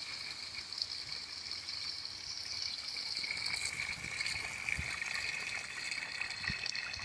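Backyard pond waterfall pouring steadily over rocks and splashing into the pond, a strong flow driven by a 7,000-gallon-per-hour submersible pump; it grows a little louder about halfway through as the waterfall comes nearer.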